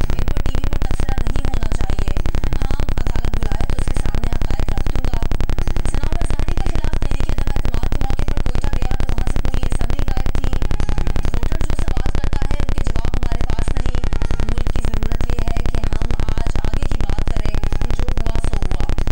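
Steady, loud buzzing static made of rapid, even pulses, with no change throughout.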